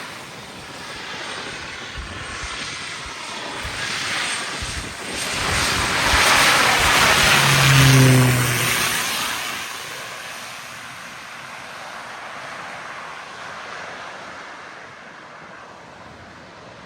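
Propeller airplane flying low overhead: its engine noise swells to a loud peak about eight seconds in, the pitch drops as it passes, then it fades away. Wind buffets the microphone early on.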